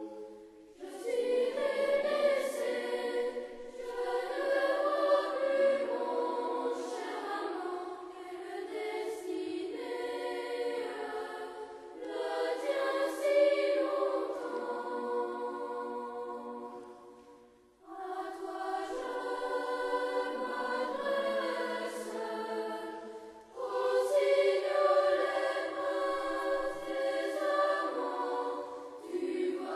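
A choir singing a traditional folk song from the Loire region in several phrases, with short breaths between them about 18 and 23 seconds in.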